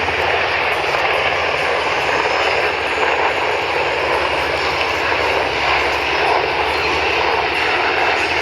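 Airplane engine running, a steady loud rushing noise with a low hum underneath that holds even throughout.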